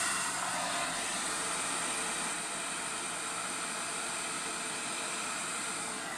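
Hand-held hair dryer running steadily, blowing air with an even hiss.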